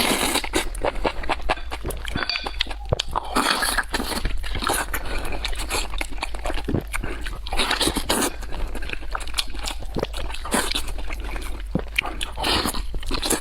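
Close-miked eating: wet chewing, smacking and slurping of spicy mushroom pot, a dense run of short clicks and bursts. A steady low hum sits under it.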